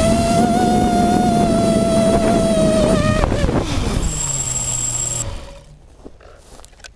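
Hexacopter's six brushless motors and propellers whining steadily in flight, then winding down sharply in pitch about three seconds in as the craft drops into the grass; the motor sound dies away about five seconds in, leaving faint rustling and ticks.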